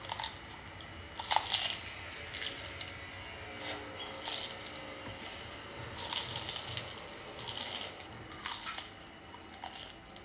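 Someone biting and chewing crunchy noodles in the mouth: crisp crackles come in uneven bursts every second or two.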